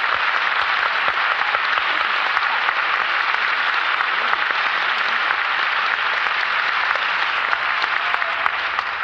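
Theatre audience applauding steadily after a musical number.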